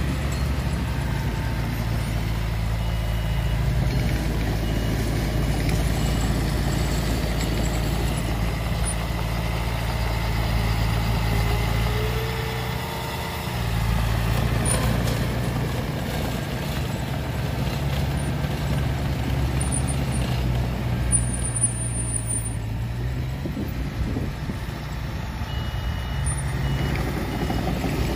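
Komatsu D20A crawler dozer's diesel engine running steadily while it pushes soil, a low drone that dips briefly about halfway through. Short high beeps sound a few times near the start and again near the end.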